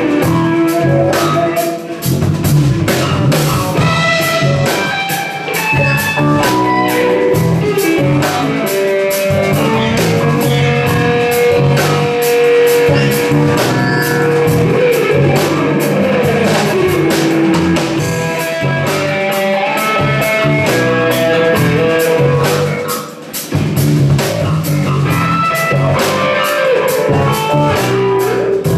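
A live rock band playing an instrumental passage: guitar over bass and drum kit with a steady beat. A long held note in the middle gives way to sliding pitches.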